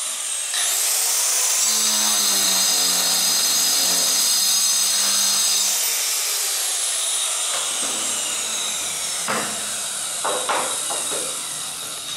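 Power tool fitted with a diamond saw blade for ceramic tile, spinning up to a steady high whine about half a second in. From about six seconds in it winds down, the whine falling in pitch, and a few knocks sound near the end.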